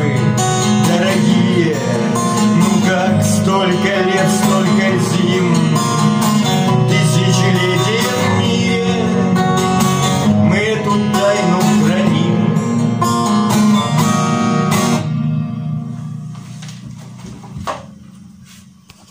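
Strummed acoustic guitar playing the instrumental ending of a song, with a gliding melody line over it. The playing stops about fifteen seconds in, and the last chord rings away to nothing, with one more light pluck near the end.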